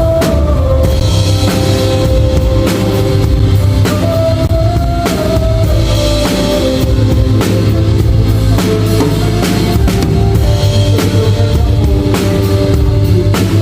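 Rock music with a full drum kit playing, kick drum strong, along with sustained guitar or bass notes; it starts suddenly right at the beginning.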